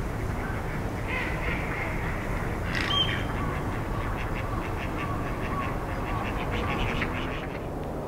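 Ducks calling, with a quick run of short repeated calls in the second half and a single sharp call about three seconds in, over steady outdoor background rumble.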